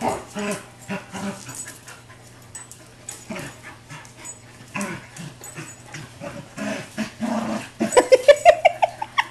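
A German Shepherd/Chow mix and an American Bulldog mix play-fighting, with scattered short dog sounds, then near the end a fast, loud run of barks rising in pitch.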